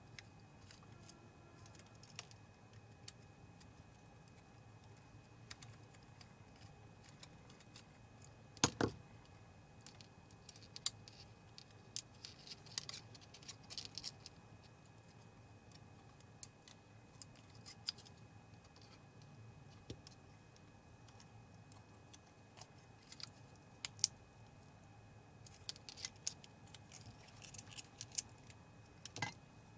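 Irregular light clicks and small metallic taps of hand tools and small parts on a projector's colour-wheel motor assembly as its sensor is taken off, with a sharper knock about nine seconds in.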